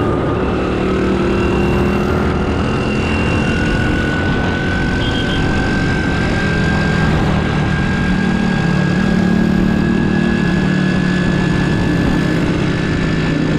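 Honda Super Cub 90 motorcycle's small single-cylinder four-stroke engine running on the move, its note climbing slowly and steadily, over a constant rush of noise.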